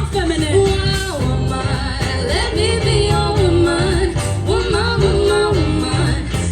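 Live band playing, with a singer holding long notes that slide up and down over a repeating bass line.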